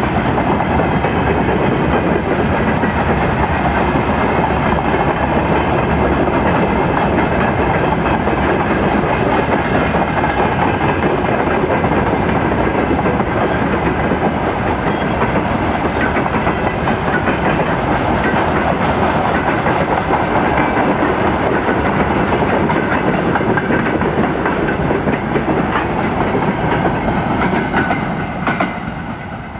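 Freight wagons of a mixed goods train rolling past at speed, their wheels clattering over the rails with a steady rumble. The sound falls away near the end as the last wagons go by.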